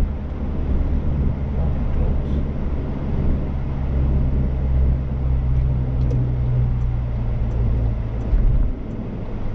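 Car engine and road noise heard inside the cabin while driving: a steady low drone that eases off about a second before the end.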